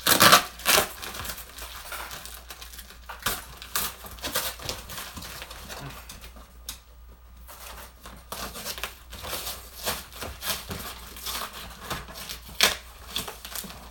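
Packing tape and cardboard flaps of a shipping box being torn open by hand: irregular rips, scrapes and clicks, loudest right at the start. Later, crumpled packing material inside rustles and crinkles as it is pulled at.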